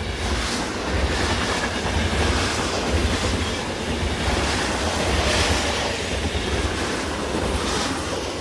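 Train running on rails: a steady rumble with clickety-clack from the wheels.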